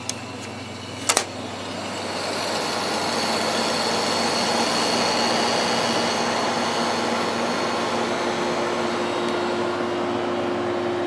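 Small window air conditioner switched on at its low setting: a couple of clicks, then the fan and compressor come up over the first few seconds and run steadily with a hum. A second steady tone joins about eight seconds in.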